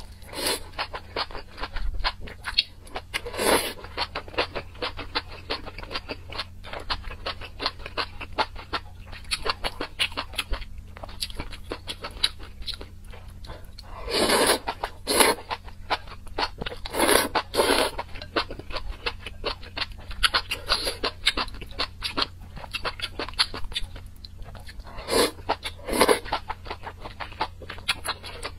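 Close-up chewing and slurping of noodles in spicy broth: a continuous stream of small wet mouth clicks and smacks, with louder slurps about halfway through and two more near the end.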